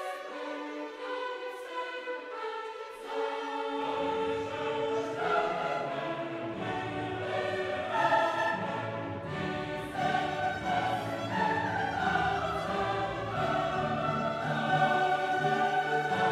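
Background orchestral music with a choir singing. Deeper bass parts come in about four seconds in.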